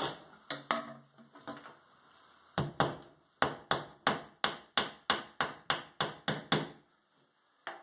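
Hammer tapping wall anchors into pre-drilled holes: a few separate knocks, then a quick steady run of blows, about four or five a second.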